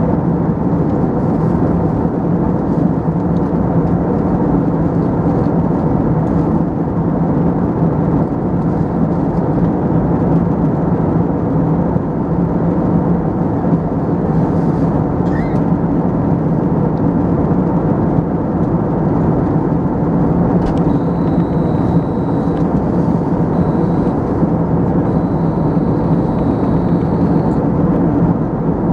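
Steady cabin noise inside a jet airliner in flight: an even rush of airflow and engine noise with a constant low hum underneath.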